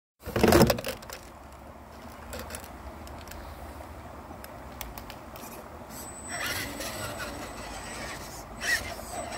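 RC scale crawler's electric motor and gears whining as it approaches over dirt, growing louder from about six seconds in. A brief loud noise at the very start.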